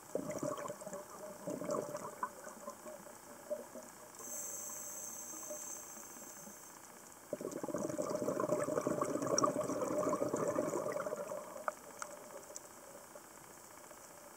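A scuba diver's regulator breathing heard underwater: a burble of exhaled bubbles, a hissing inhale with a high whistle from about four to seven seconds in, then a longer, louder burble of exhaled bubbles that stops about twelve seconds in.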